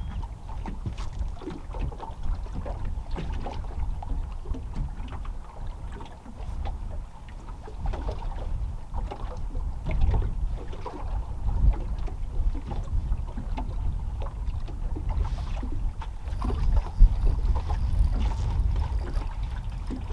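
Wind buffeting the microphone in an uneven low rumble, with small waves lapping and knocking against a boat's hull.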